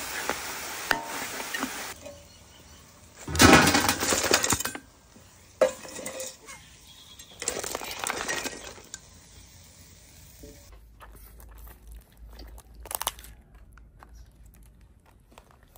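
Cooked crabs and a metal spatula clattering against a metal wok and serving platter as they are stirred and tipped out. The clatter comes in several noisy bursts a few seconds apart, with fainter clicks of crab shells being handled near the end.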